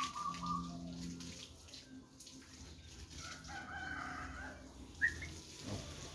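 A rooster crowing: a long drawn call fading out in the first second and another a few seconds in, with a short high bird chirp about five seconds in.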